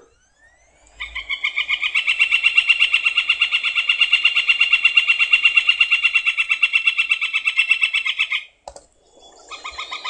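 Northern flicker giving its long call: a fast, even run of repeated notes held for about seven seconds, then a second run begins near the end.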